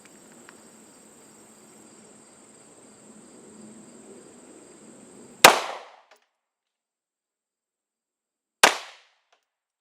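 Two 9mm shots from a Glock 19 Gen 5 pistol, about three seconds apart, the first about five and a half seconds in. Before the first shot there is only a faint steady background hiss, and after it the background cuts out completely.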